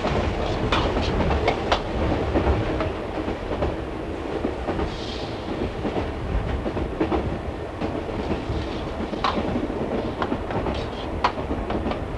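Passenger train running on the rails: a steady rumble with scattered clicks and knocks.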